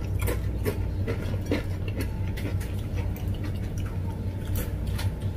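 Crunchy black ghost-pepper chips being chewed close to the microphone: irregular crisp crunches over a steady low hum.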